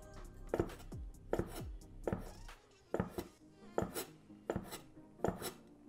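Kitchen knife chopping through folded sheets of hand-rolled noodle dough onto a wooden cutting board. Sharp, steady cuts come a little more than once a second.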